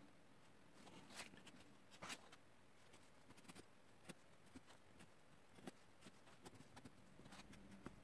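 Faint, scattered scratches and ticks of a pencil sketching on a sheet of paper, with an occasional light rustle as the paper is shifted.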